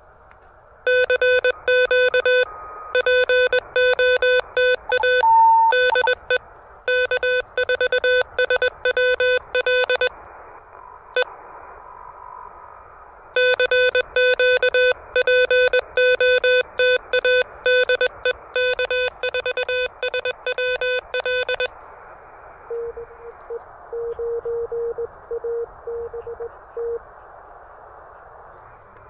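Morse code from an Elecraft KH1 transceiver played through a small amplified speaker. A loud, slightly harsh keyed tone comes in two long runs of dots and dashes, with the receiver's band hiss between them. A fainter Morse signal at the same pitch comes in near the end.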